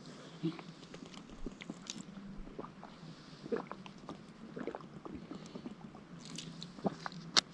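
A person drinking cold water in gulps: soft wet swallowing clicks and small mouth sounds, with a sharper click near the end.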